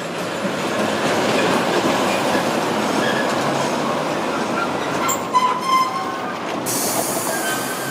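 Sapporo streetcar running on its rails with a steady rumble and thin wheel squeals. There are a few sharp clicks about five seconds in, and a high hiss starts near the end.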